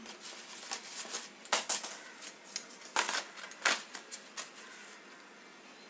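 Marker pen drawing on stiff paper: short, irregular scratchy strokes, with the paper shifting under the hand. It goes quiet for about the last second.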